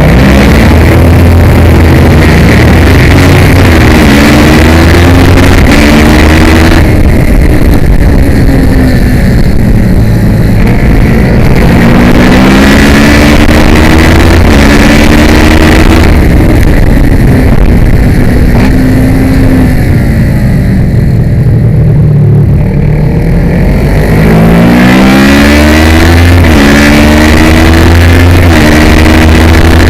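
Kawasaki ER-6 (ER650) 649 cc parallel-twin race engine under hard acceleration, heard onboard: the pitch climbs and steps down at each gearchange, and twice falls away as the bike slows before climbing again.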